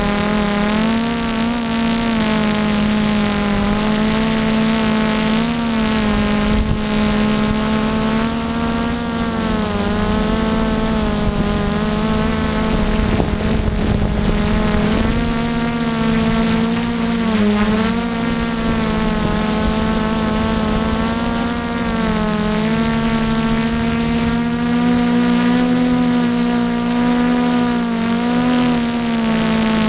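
Y6 multicopter's six 1000 kV brushless motors spinning 9-inch slow-fly propellers in flight, a steady buzzing whine whose pitch dips and rises every few seconds as the flight controller adjusts throttle, over a low rumble of wind.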